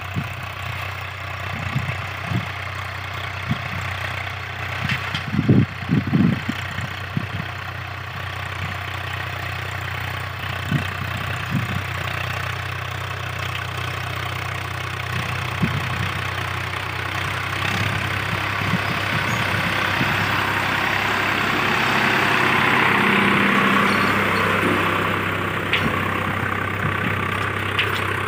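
Tractor's diesel engine running steadily, with a few heavy thumps about five to six seconds in. It grows louder in the second half.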